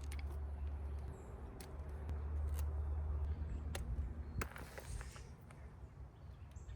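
A few sharp clicks and light knocks from hands working small parts off a steering wheel, over a steady low rumble.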